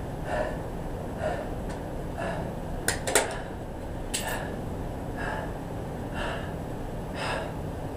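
A man breathing hard and heavily, about one breath a second, winded after an all-out high-intensity strength set. A few sharp clicks and knocks come about three to four seconds in as he gets up.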